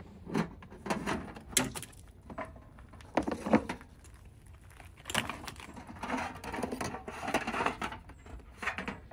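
Pelican 1600 hard plastic case being unlatched and opened, and a coil of rubber water hoses inside being handled and pulled out: irregular clicks and knocks, with longer rustling and scraping from about five to eight seconds in.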